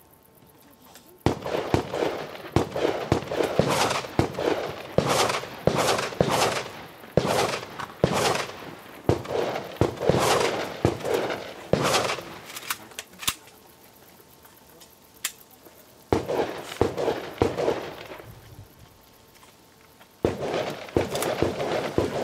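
Shotgun fired in quick succession during a practical shotgun stage: a run of sharp, echoing shots, a pause of a few seconds with only faint clicks about halfway through, then two more strings of shots.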